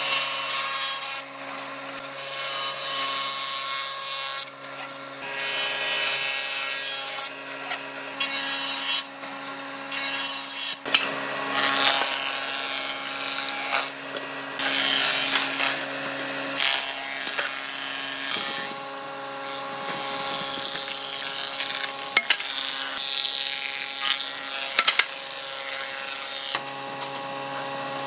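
Combination jointer-planer running with a steady motor hum, its cutter head shaving boards fed across it: a hissing cutting noise that rises and falls as the wood passes over, with a few sharp clicks.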